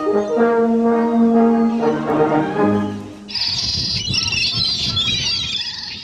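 Music of held notes stops about three seconds in and gives way to a flock of black-tailed gulls calling, a dense high-pitched chatter over a low rumble.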